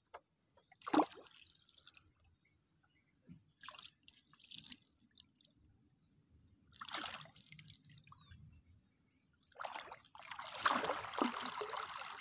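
Water splashing and dripping beside a small boat: short splashes about every three seconds, then a longer stretch of splashing near the end.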